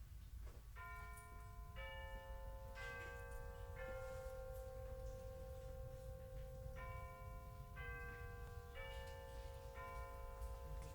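A four-note bell chime, one note a second, rings out twice, the notes ringing on and overlapping. The first phrase starts about a second in and the second about seven seconds in. A steady low hum of store ambience runs underneath.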